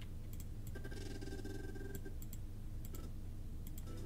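Scattered computer mouse and keyboard clicks over a steady low hum.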